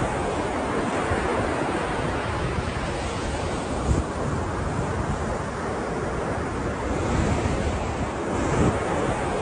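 Ocean surf: a continuous wash of waves breaking and rushing, with wind buffeting the microphone.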